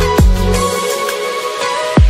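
Electronic background music with a heavy kick drum, a synth bass line and held synth notes; the bass drops out about half a second in, and the next kick lands near the end.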